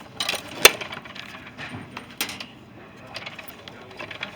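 Sharp clicks and knocks of handling a snack vending machine's money compartments during a collection, one loud click about two thirds of a second in and another about two seconds in, with softer rattling between.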